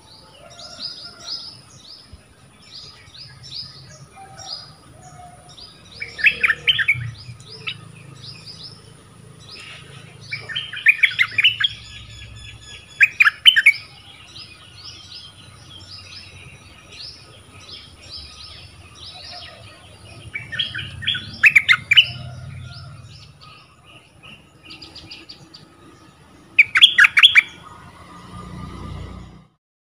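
Caged decoy bulbul singing in short, loud bursts of quick notes every few seconds, with thinner, higher chirps scattered between them.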